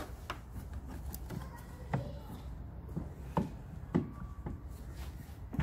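A few short, sharp clicks and knocks as hands handle hoses and parts under the bonnet of a car engine bay, over a low steady hum.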